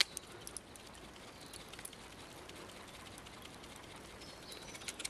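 Small wood fire in a Vargo Fire Box Grill stove, crackling faintly with scattered small ticks over a low steady hiss while it is being fanned. A few sharper ticks come near the end.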